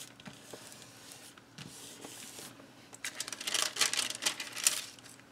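Hands rubbing a paper cut-out flat on the page, a soft hiss, then tissue paper crinkling and rustling as it is handled, from about three seconds in for nearly two seconds.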